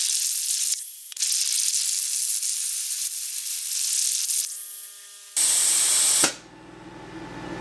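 CNC plasma cutter torch cutting mild steel plate: a steady high hiss of the arc and its air jet, broken briefly about a second in. Near the end a short tone sounds, then a louder rush of noise lasting under a second.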